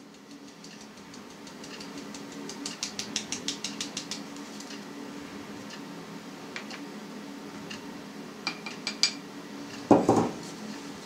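Flour being sifted through a plastic hand sieve over a mixing bowl: the sieve rattles in a quick run of light clicks, about nine a second, with a few more scattered clicks after. A short thud near the end, as a glass is set down, and a faint steady hum underneath.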